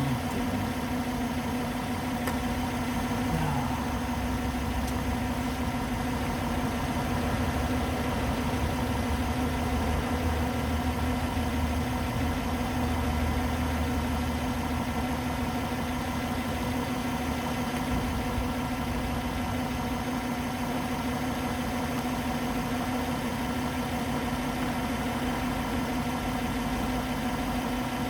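Car engine idling steadily, an even hum with no clear crunches or impacts.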